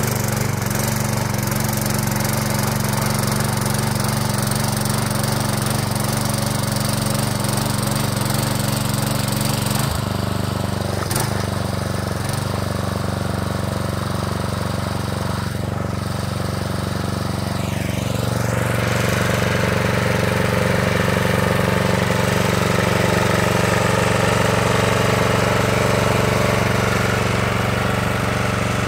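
Mountfield M1 Monarch rotavator's 4 hp Briggs & Stratton single-cylinder engine running steadily. Its note changes about ten seconds in and again a little past halfway, running slightly louder after that.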